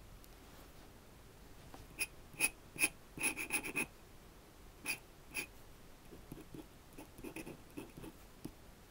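A dip pen's nib working on drawing paper: short, sharp scratchy ticks, a quick run of them a few seconds in, then lighter strokes.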